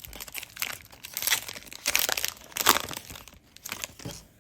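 Foil wrapper of a Pokémon Scarlet and Violet booster pack crinkling and tearing as it is pulled open by hand, in irregular crackling bursts that die down after about three seconds.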